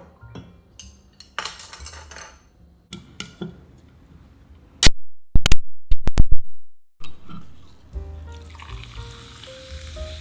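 Cooking sounds over background music: scattered clicks of utensils, then a quick run of several very loud, sharp knocks a few seconds in. Near the end, food starts sizzling in a hot pan as a steady hiss.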